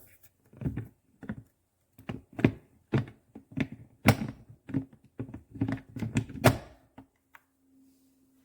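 Electric food chopper pulsed in short bursts on chunks of onion: about a dozen quick, irregular thuds and knocks as the onion pieces are flung against the bowl, stopping about seven seconds in.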